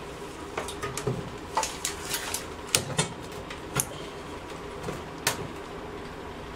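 Irregular clunks and knocks of a pressure washer's small engine being handled and set down into a plastic oil drain pan, with a sharper knock at the end.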